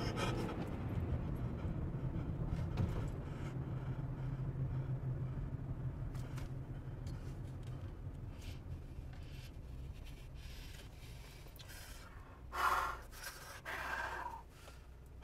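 Low rumble of a moving car heard from inside the cabin, slowly dying down. Near the end, two heavy breaths out.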